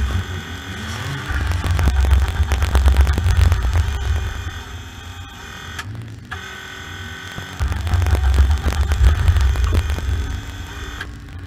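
Junior banger race car heard from inside the cabin, its engine running hard under way with a heavy low rumble. The rumble comes in long loud stretches and eases off around the middle, and the sound drops out briefly twice, about six seconds in and again near the end.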